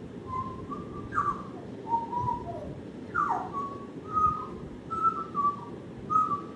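African grey parrot whistling a string of short notes, with two quick downward swooping whistles about a second in and about three seconds in.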